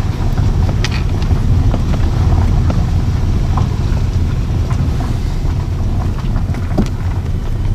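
Car driving along, its engine and road noise a steady low rumble heard from inside the cabin, with a few small knocks.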